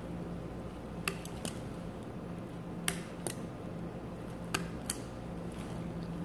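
Metal needle driver clicking as it grips and releases a suture needle: six sharp clicks in three pairs, each pair about half a second apart, over a steady low hum.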